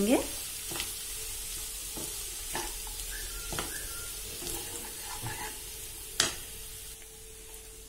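Wooden spatula stirring and scraping rice and vegetables around a non-stick kadhai over a soft frying sizzle. Scattered light taps, with one sharper knock of the spatula against the pan a little after six seconds in.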